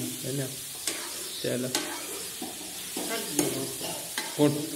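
A metal spoon stirring diced bottle gourd and tomato in a steel kadai on a gas stove, the vegetables sizzling lightly as they fry, with a few sharp clicks of the spoon against the pan.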